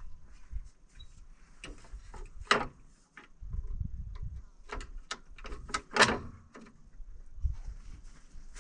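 Scattered clicks and knocks of parts being handled and fitted, with two louder knocks about two and a half and six seconds in, over a low rumble of wind on the microphone.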